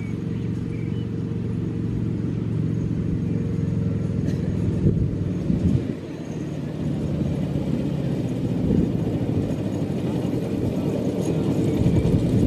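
Engine of a 7¼-inch gauge miniature railway's diesel-outline locomotive running steadily as it hauls a passenger train, growing slowly louder as the train draws near.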